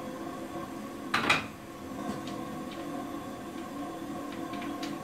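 One sharp wooden knock with a brief clatter about a second in, from handling parts at a home-built vacuum former's wooden table, followed by a few light taps and clicks. A steady hum runs underneath.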